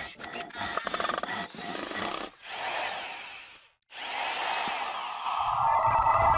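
An electric PKS 1500 A2 mitre saw running and cutting through a wooden board, then, after a brief break, a welding arc hissing. Music with a steady tone and bass starts near the end.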